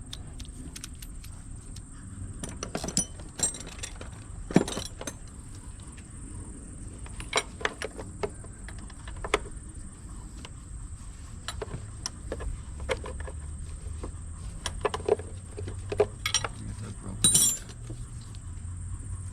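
Scattered clinks and clicks of metal hand tools and parts being handled during car repair work, with a brief rattle near the end.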